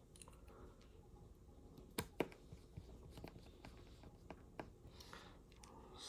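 Faint, scattered clicks and taps of small tools and parts being handled while a smartphone is put back together, with two sharper clicks about two seconds in.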